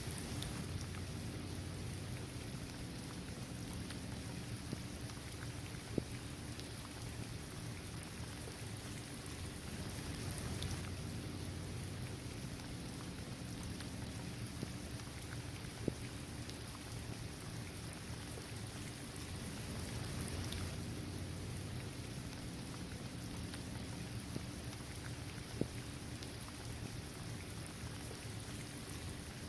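Steady rain falling on a hard basketball court, trees and grass, with a few louder single drops striking sharply, about three times.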